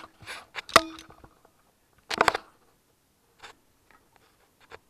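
Metal clicks and clinks of locking pliers gripping and rocking a lifter out of an SR20DET cylinder head: a sharp click at the start, a louder one with a short ring just under a second in, a brief cluster about two seconds in, then a few faint ticks.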